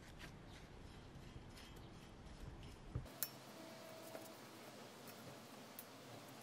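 Faint brushing: a paintbrush dipped in a paper cup and stroked along a bare metal bicycle frame tube, with a couple of light taps about three seconds in. A low hum drops out abruptly at the same moment.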